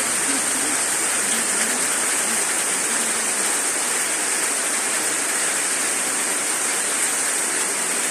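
A steady, loud hiss that runs without a break, brightest in its high treble.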